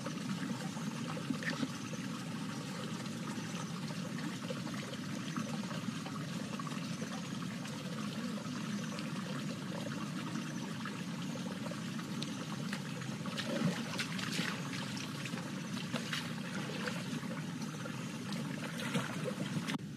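Shallow rocky stream trickling steadily over stones, with a few light clicks and rustles in the second half.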